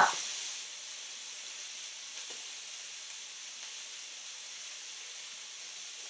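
Steady faint hiss, even throughout, with no other clear sound.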